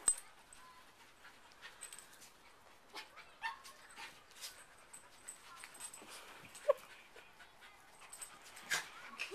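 Two dogs play-fighting: scuffling and short clicks of paws and jaws, with a few brief yips, one of the clearest about two-thirds of the way in.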